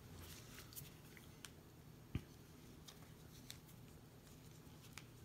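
Near silence with a few faint, scattered clicks and taps, the sharpest about two seconds in: a watch on a nylon NATO strap being buckled onto the wrist.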